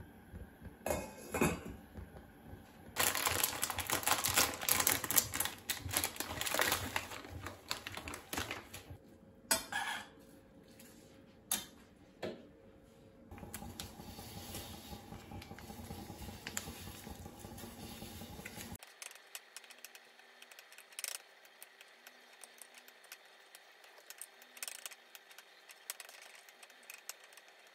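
Kitchen handling sounds while making noodles: cookware and utensils clink and clatter, with a few seconds of loud, steady noise in the first third. Near the end, chopsticks tap a ceramic bowl lightly while stirring noodles.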